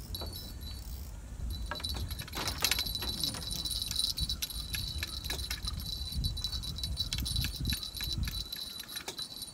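Steady high metallic ringing and jingling over fast clicks from a fishing rod and its reel while a hooked fish is played on the line.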